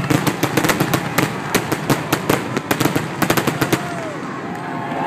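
Aerial fireworks shells bursting, with a dense run of rapid crackling pops, several a second, that thins out about four seconds in.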